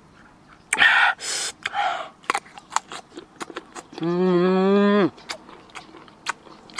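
A man eating crunchy, sour green mango dipped in chili salt. About a second in comes a loud hissing suck through pursed lips, then crisp chewing clicks, then a drawn-out vocal "mmm" groan of about a second, rising slightly and then falling off.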